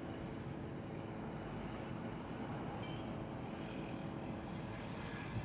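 Steady distant roar of rockets launching and climbing away, an even rumble with a faint hum running through it.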